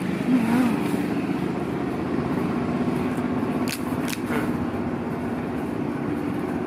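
A motor engine running steadily, a constant low drone, with two or three sharp clicks about halfway through.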